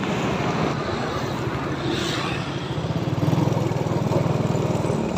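Motorcycle engine running steadily as the bike rides along, a little louder from about three seconds in.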